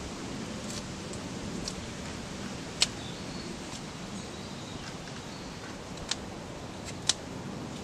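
Knife blade shaving thin strips off a debarked wooden stick to smooth it into a skewer: a series of short, sharp cuts at irregular intervals, the sharpest about three, six and seven seconds in.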